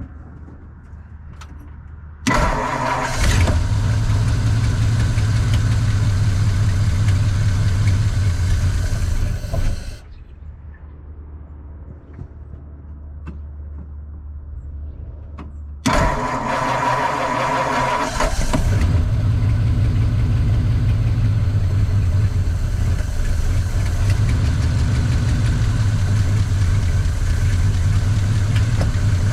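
1952 Ford flathead V8 cranked on the starter and catching about two seconds in. It runs for several seconds and stops near ten seconds, then is cranked again about sixteen seconds in and settles into a steady run. The owner says the carburetor is acting up.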